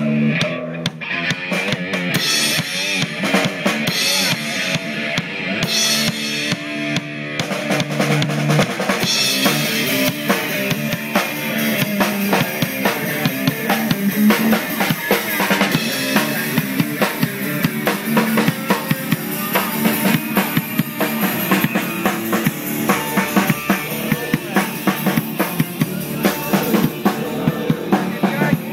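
Band music led by a drum kit keeping a steady beat, with bass drum, snare and cymbal hits.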